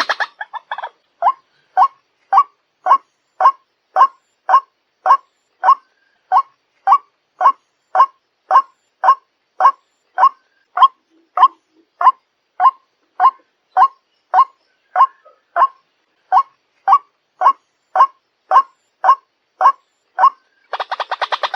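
White-breasted waterhen calling: one short note repeated evenly, about two a second.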